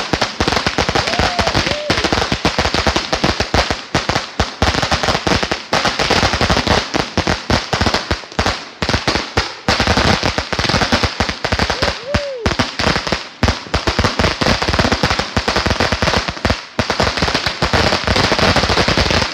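Firecrackers going off in a long, rapid string of sharp bangs and pops, many a second without a break. A couple of brief whistling tones that rise and fall sound in among them.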